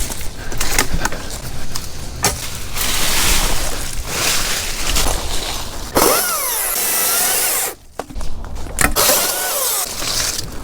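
Chainsaw running and cutting through holly limbs, with sharp cracks and snaps of branches and the rustle of leafy brush. The saw's pitch glides up and down in the second half.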